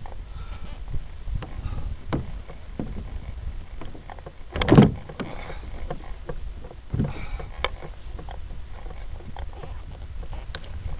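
Small clicks and knocks of fishing gear on a plastic pedal kayak, over a steady low rumble of wind and water on the microphone, as a bent rod and reel are worked against a hooked fish. One louder short knock about halfway through.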